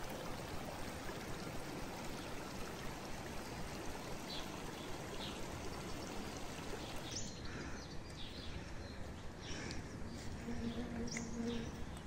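Shallow mountain stream rushing over stones and through grass, a steady wash of water. About seven seconds in the water sound thins and birds chirp in short calls, with a brief low steady call near the end.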